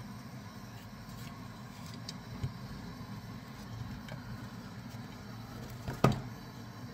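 Steady low rumble from the cooker with the stew pan heating on the gas hob. There are a few faint clicks and a sharper knock about six seconds in.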